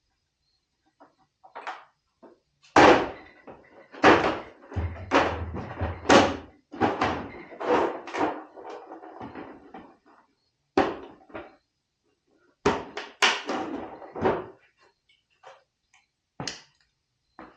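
A string of irregular knocks and clunks of objects being handled and set down, loudest about three and four seconds in, with a short pause near the middle.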